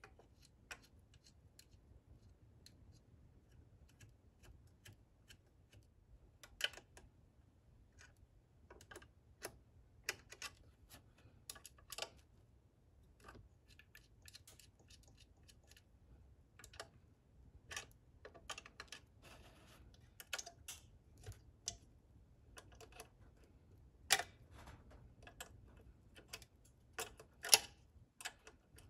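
Irregular clicks and taps of hand assembly: 3D-printed plastic parts, bolts and nuts being fitted and a small metal wrench tightening nuts, with the sharpest knocks in the last few seconds.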